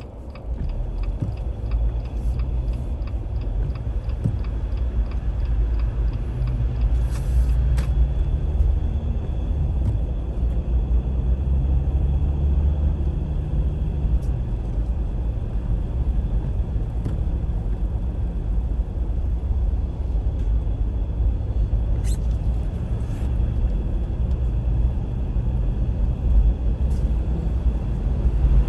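Steady low rumble of a car's engine and tyres heard from inside the cabin while driving, with a light regular ticking during the first several seconds.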